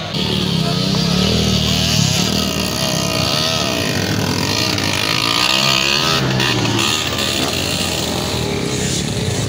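Off-road dirt bike engines revving, the pitch rising and falling again and again as the riders work the throttle on a steep dirt trail climb.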